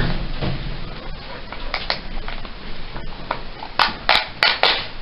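Num Noms blind-bag packaging being handled and torn open: soft rustling, then four sharp crackles in quick succession about four seconds in.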